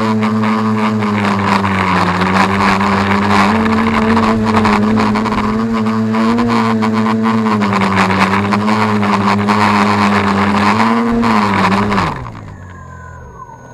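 X525 quadcopter's electric motors and propellers droning in flight, the pitch wavering slightly as the throttle shifts while it comes down. About twelve seconds in, on landing, the drone cuts off and the motors wind down with faint falling whines.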